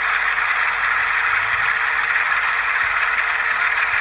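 Sound-decoder diesel engine sound of a GE ES44AC, played through the HO-scale model's small onboard speakers, running steadily at a low throttle setting.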